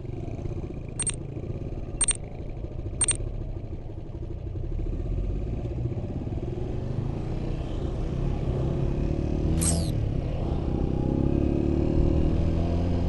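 Motorbike engine running on the move with wind rumble on the microphone, the engine note rising in the second half as it picks up speed. Three short high beeps come about a second apart near the start, and a brief falling high chirp follows later.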